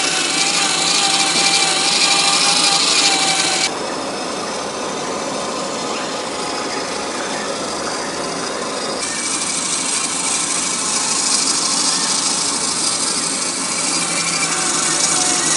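Small electric motor and gearbox of an RC4WD Trail Finder 2 scale crawler whining as it drives, with its tyres crunching over dirt, twigs and gravel. The sound drops suddenly about four seconds in and comes back louder, whine included, around nine seconds.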